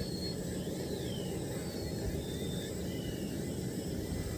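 Steady low outdoor rumble with a few faint, short whistled bird calls above it, one sliding up and then down about a second in.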